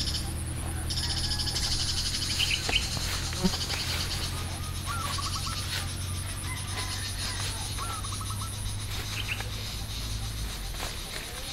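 Outdoor nature sounds: insects buzzing in a pulsing high trill and a bird calling twice with short runs of quick repeated chirps, with a few light knocks about three seconds in.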